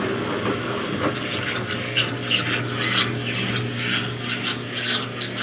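Brastemp Ative! top-loading washing machine agitating in its rinse cycle: a steady motor hum under a run of swishing, rubbing strokes from the clothes and water being churned.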